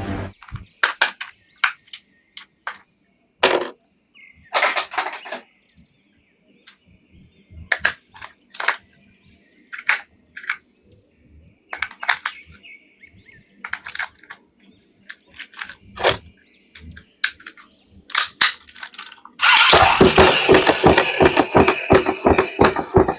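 Plastic toy packaging and action figures being handled: scattered sharp clicks and snaps with short crinkles. About 19 seconds in it turns into a loud, dense run of rapid crackling.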